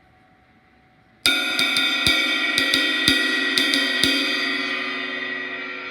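A 1,770-gram new-stamp K Zildjian Istanbul cymbal played with a stick: one loud crash about a second in, then a quick run of about eight stick strokes over three seconds. The shimmering wash rings on and slowly fades.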